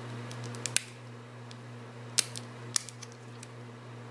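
A few sharp little clicks and ticks of fingers and nails working at a small plastic phone loudspeaker module, peeling off its protective film. A steady low electrical hum runs underneath.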